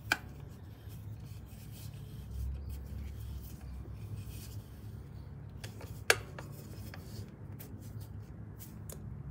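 A T-handle hex key turning the centre screw of a chrome Harley-Davidson air cleaner cover: faint metal-on-metal rubbing and scraping, with a sharp click just after the start and another about six seconds in, over a steady low hum.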